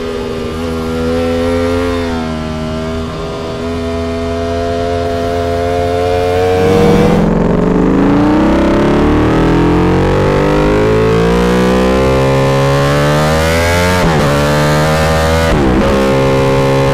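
Ducati Panigale V4's 1,103 cc 90° V4 engine under way at a steady pitch. After a cut it accelerates, rising steadily in pitch, with two quick upshifts near the end before settling at a steady higher note.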